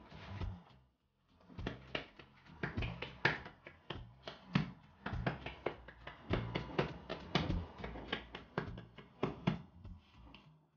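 Hands kneading and patting a ball of soft brioche dough on a floured granite worktop, in a quick irregular run of soft slaps, with a short pause about a second in. This is the final kneading that works the dough smooth.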